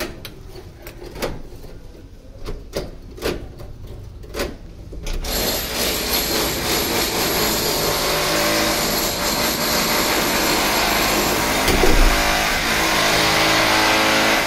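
A string of sharp metallic clicks and clacks from a steel door's multi-point lock being worked with key and handle. About five seconds in, a loud steady rushing noise starts suddenly and runs on, with a low hum coming through near the end.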